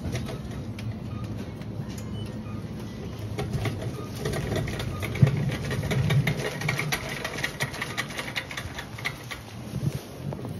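Shopping cart being pushed across a supermarket floor, its wheels and plastic basket rattling in rapid clicks, densest through the middle seconds.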